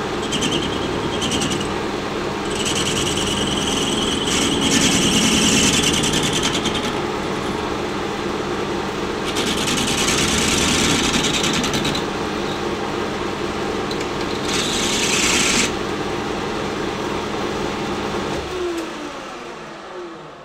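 Small bench metal lathe running, its turning tool cutting a thin brass screw shaft held in a six-jaw chuck: a steady motor and spindle running, with a higher hiss of the cut coming and going in about four passes. Near the end the motor is switched off and the spindle runs down.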